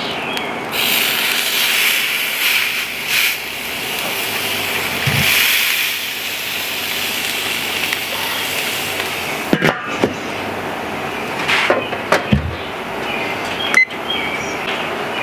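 A thick steak sizzling as it goes onto the hot grate of a charcoal kettle grill. The hiss is strong for the first several seconds and then settles, followed by a few sharp metal clanks in the second half as a grill press and then the lid are set on.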